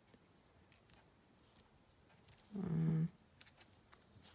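A woman's short hummed "hmm" about two and a half seconds in, at a steady pitch, followed by faint light ticks of small paper pieces being handled.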